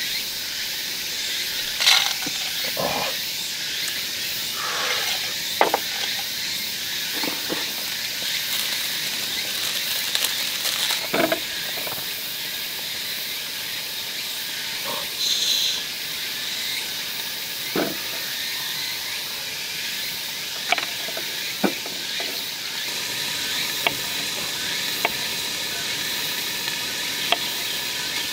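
Steady sizzling of meat frying in a lidded pan, with scattered light clicks and knocks throughout.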